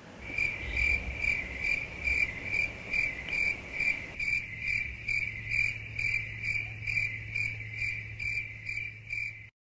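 A cricket chirping in an even rhythm, a little over two high chirps a second, over a steady low hum; it stops abruptly near the end.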